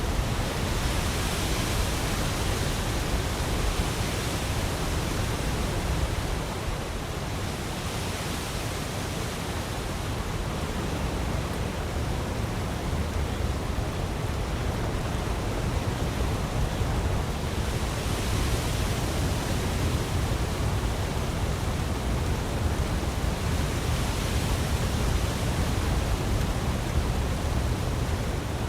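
Snowmelt water flowing in a steady, continuous rush, swelling a little in brightness every few seconds.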